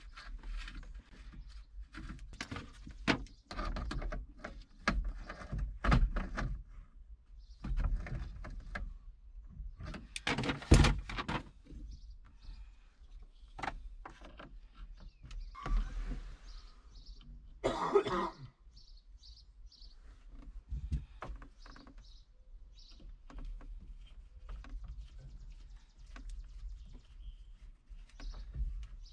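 Irregular clicks, knocks and small rattles of hands and a screwdriver working on a tractor's dash panel while a light switch is fitted back in. The loudest is a sharp knock about a third of the way in. A person coughs once a little past the middle.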